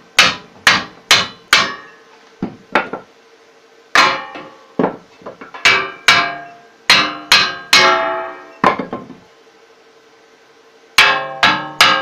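Hammer blows driving wooden centring blocks into place between a steel wheel rim and the flat steel bar hoops of a homemade swamp-buggy wheel, the steel ringing after each strike. About seventeen uneven blows come in runs, with a pause of about two seconds before a last quick run near the end.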